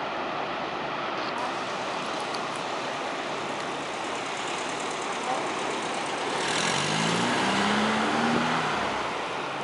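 Steady rush of distant surf. From about six and a half seconds in, a passing car swells over it for a couple of seconds, then fades.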